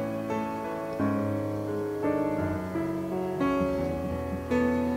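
Background piano music: slow notes and chords that change about once a second.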